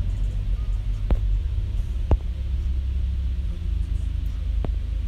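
Steady low rumble of road and engine noise inside a moving car's cabin, broken by three short knocks: about a second in, about two seconds in, and near the end.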